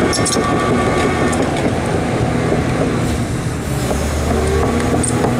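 Hyundai R300LC crawler excavator's diesel engine running steadily, with a few sharp metallic clicks.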